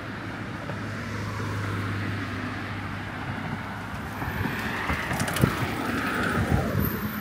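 Road traffic passing. A steady low hum runs for the first three seconds, and wind buffets the microphone in the second half.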